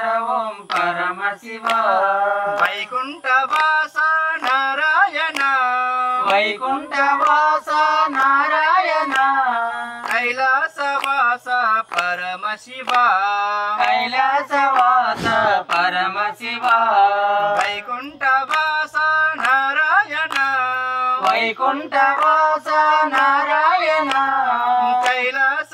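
Men and a woman singing a song together, a group song (brundaganam), while clapping their hands to keep time. The claps fall steadily about once or twice a second under the voices.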